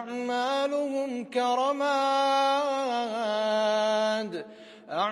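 A man chanting Quran recitation in melodic tajwid style, unaccompanied, drawing out long held, ornamented notes. The voice breaks off for a short pause about four and a half seconds in, then resumes.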